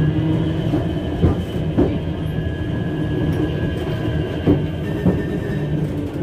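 Kadıköy–Moda nostalgic tram running, heard from inside the car: a steady low hum with a faint high wheel squeal, and a few sharp clacks scattered through.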